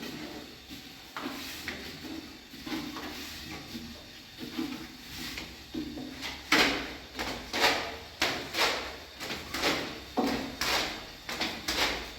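A run of sharp knocks and clatters, soft and scattered at first, then from about halfway through coming louder and evenly, about two a second.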